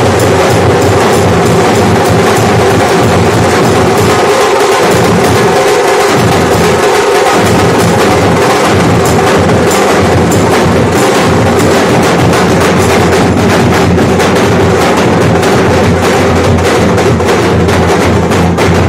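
Nashik dhol ensemble playing: several large barrel drums beaten with sticks in a fast, dense, loud rhythm. A held melodic line sounds above the drums throughout.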